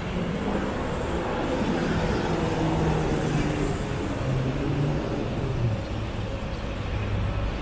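Street traffic: a motor vehicle's engine running, its low note stepping in pitch several times, over a steady hiss.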